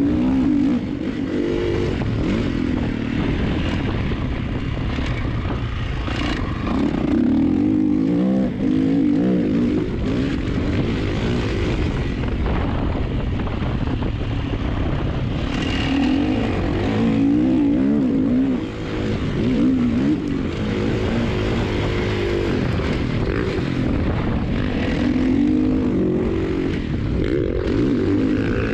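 Kawasaki KX motocross bike's engine under hard riding, revving up and falling back again and again as the rider opens and closes the throttle and shifts around the track.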